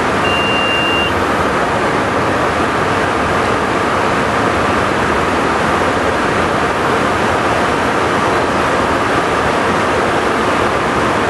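Steady cockpit noise of a Cessna Citation V Ultra jet in a fast descent: air rushing past the cabin over the hum of the turbofan engines. A single high beep lasting about a second sounds right at the start.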